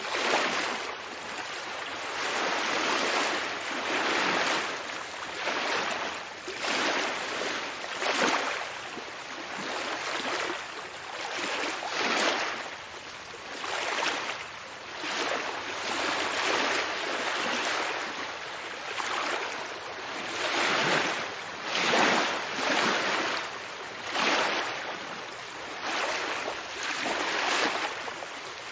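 Ocean waves washing in, a rushing surf that swells and falls away every second or two.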